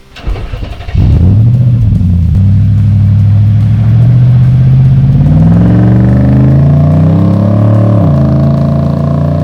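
Nissan Y62 Patrol's V8 engine accelerating away: the engine note jumps up about a second in and climbs steadily for several seconds, then drops sharply near the end at a gear change and holds.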